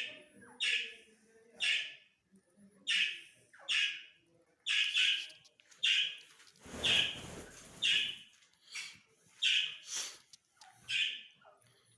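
Gray francolin (teetar) giving short, harsh calls, repeated about once a second. A brief noisy rustle comes about seven seconds in.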